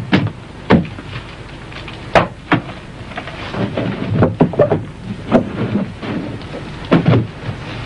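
Gunfire in an exchange of shots: about ten sharp reports at uneven intervals, each trailing off in a low rumble.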